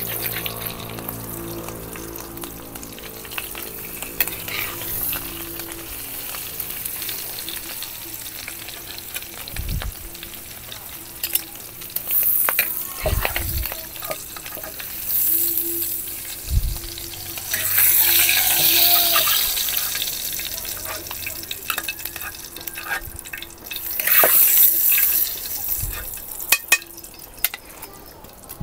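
Food frying in hot oil in a wok, sizzling steadily, with several louder surges of sizzle and a few knocks as a metal spatula turns the fried pieces and lifts them out of the oil.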